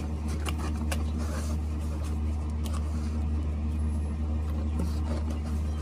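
Scissors cutting through packing tape on a cardboard parcel: a few sharp snips and rustles over a steady low hum.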